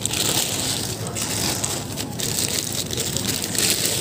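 Pink plastic wrappers on pomelos crinkling and rustling as the fruit is rummaged through and lifted from the bin, in irregular bursts of crackle.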